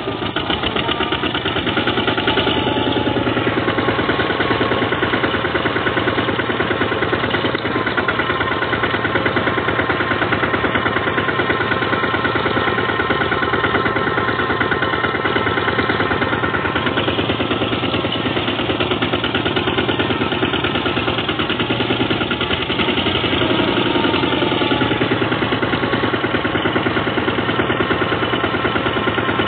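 Single-cylinder diesel engine of a two-wheel walking tractor running steadily while pulling a loaded cart, its fast, even firing pulses unbroken throughout.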